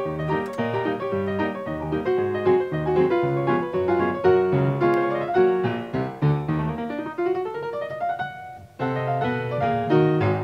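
Background piano music, a quick run of notes with a short break about eight and a half seconds in before it starts again.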